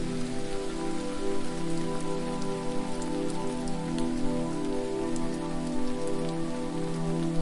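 Steady hiss of falling water with scattered fine drip ticks, over sustained low ambient music tones that shift slowly from chord to chord.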